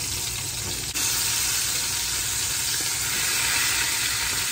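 Marinated chicken leg quarters sizzling as they fry in a little cooking oil in a frying pan while being turned over with tongs. The sizzle gets louder about a second in and then holds steady.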